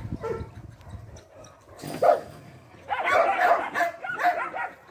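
Dogs barking and whining: one sharp bark about two seconds in, then a run of high whines and yips lasting over a second.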